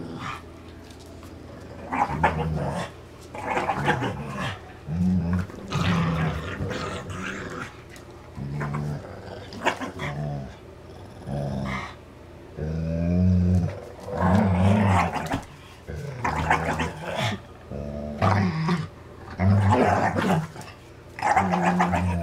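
Dogs growling in play while tugging on a rope toy: a string of growls, each lasting about a second, broken by short pauses.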